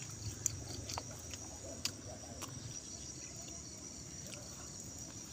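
Insects, crickets, chirring steadily at a high pitch, with a few sharp clicks in the first half.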